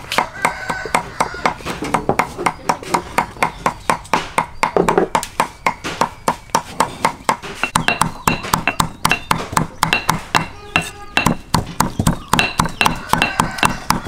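Steel cleaver chopping dried red chillies on a wooden chopping block, quick knocking strokes several a second. From about eight seconds in, many strokes also give a short metallic ring.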